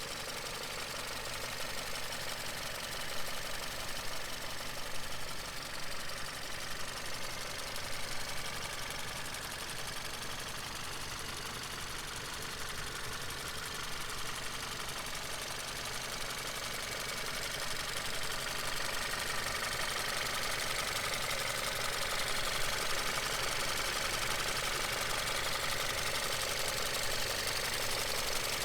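2020 Hyundai Sonata's 1.6-litre turbocharged four-cylinder engine running steadily, getting a little louder about two-thirds of the way through.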